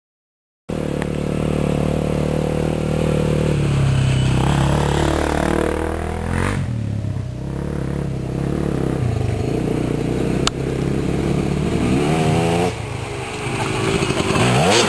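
Enduro trail motorcycle engine running and being revved, its pitch rising and falling with the throttle. It starts suddenly after a second of silence.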